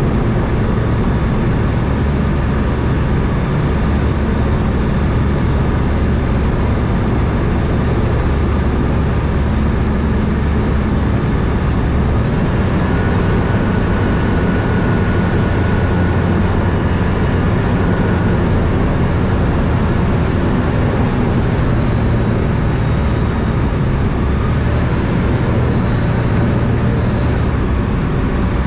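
Ikarus C42 microlight's Rotax four-cylinder engine and propeller droning steadily in the cockpit. The engine note changes about halfway through and again near the end.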